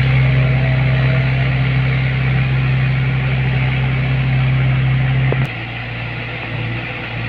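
Heavy diesel engine held at high revs with a steady drone, then dropping back to a lower speed with a click about five seconds in.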